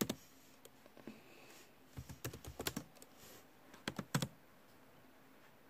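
Faint scattered key taps and clicks, like typing on a keyboard: one at the start, a quick run about two to three seconds in, and two louder taps just after four seconds.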